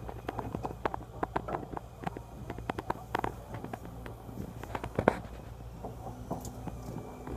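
Scattered light clicks and knocks of fishing tackle and line being handled at the boat's side, the sharpest knock about five seconds in, over the steady low drone of the boat's engine.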